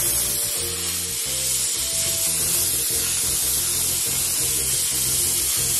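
Dupray Neat steam cleaner jetting steam through its narrow grout nozzle: a steady hiss. Background music plays underneath.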